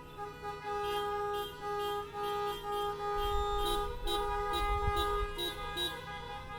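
Car horns honking in the street, overlapping: long held blasts, then a run of short toots about three a second from about four seconds in, with a low rumble joining about three seconds in.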